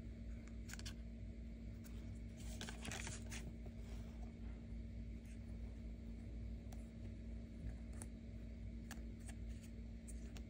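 Hard plastic toy figures handled by fingers: light clicks and rubbing of plastic as heads are fitted onto the figures, with a short run of scraping about two and a half to three and a half seconds in. A steady low hum runs underneath.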